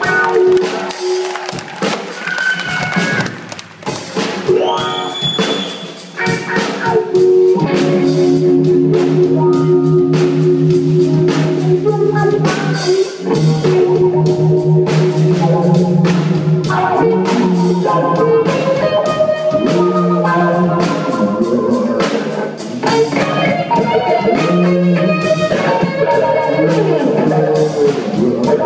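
Rock band playing live: electric guitars and bass over a drum kit. The first few seconds are quieter and sparser, then the full band plays loud and steady from about seven seconds in.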